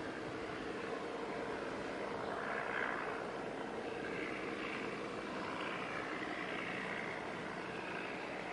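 Steady engine hum of fishing boats passing close by, with a higher whine that swells briefly about two to three seconds in.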